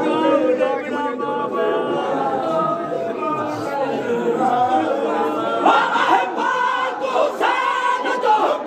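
Many men's voices chanting a noha together. From about six seconds in, the voices rise into louder shouted lines that come roughly once a second.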